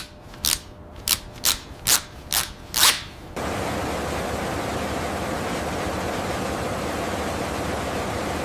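Six short, sharp scraping strokes about every half second as a threaded metal hose fitting is worked tight. About three and a half seconds in they give way to a steady, even hiss of workshop ambience with a faint hum.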